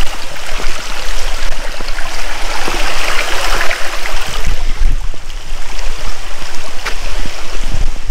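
Forest stream rushing over rocks close by, a steady loud water noise, with a low rumble and a few faint clicks underneath.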